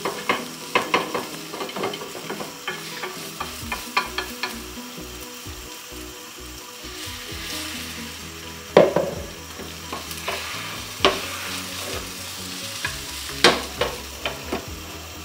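Beaten egg for a Japanese rolled omelette sizzling in an oiled square pan on a gas hob. Wooden chopsticks click and scrape against the pan throughout, with a few sharper taps standing out.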